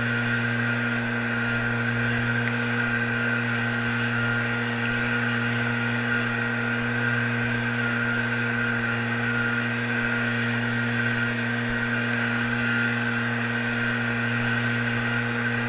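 Small engine of a RedMax outdoor power tool running steadily at one even pitch, without revving up or down.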